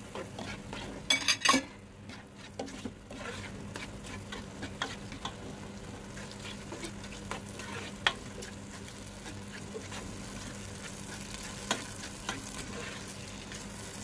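Chopped tomatoes sizzling in hot oil with onions in a non-stick pot while a spatula stirs them, clicking and scraping against the pot. There is a cluster of loud clacks about a second in.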